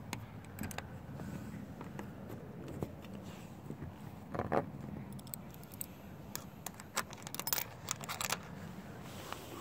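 Metal hasp latch on a wooden coop door being handled: scattered light metallic clicks and rattles, with a duller knock about four and a half seconds in and a quick run of clicks near the end.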